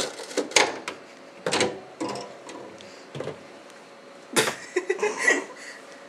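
Wire refrigerator shelves being handled and pulled out, clinking and knocking against the fridge's plastic liner in a series of separate sharp clatters, busiest near the end.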